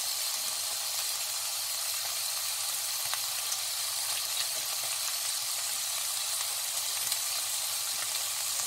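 Pieces of bacon sizzling steadily in a hot nonstick wok, with a few small crackling pops.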